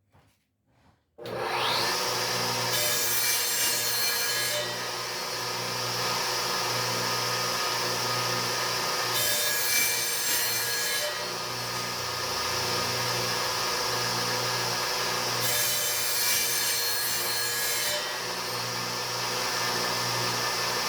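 An electric woodworking power tool switches on about a second in, its whine rising as it comes up to speed, then runs steadily. Three times it bites into wood, adding a harsher, higher hiss for a second or two each.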